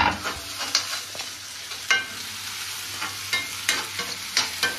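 Onions and green chillies frying in mustard oil in a metal kadhai, sizzling steadily, while a flat metal spatula stirs and scrapes the pan. The spatula strikes the pan with a sharp clang at the start and about half a dozen lighter clinks after it.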